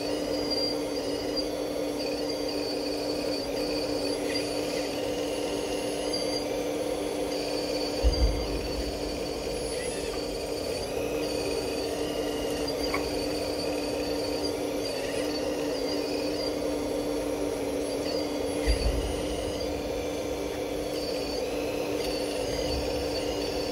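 Radio-controlled model Liebherr 954 excavator working: a steady electric whine with higher-pitched whines that rise and fall as it moves. There are two short low thumps, about eight seconds in and again near nineteen seconds.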